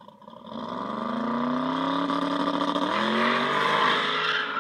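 Twin-turbo Pontiac drag car's engine revving hard as it accelerates away, its pitch climbing and the sound growing louder, with a step in pitch about three seconds in; it cuts off suddenly at the end.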